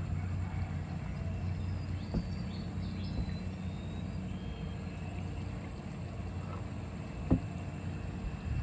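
Small boat engine running steadily with an even low hum, a few faint bird chirps above it, and a single knock near the end.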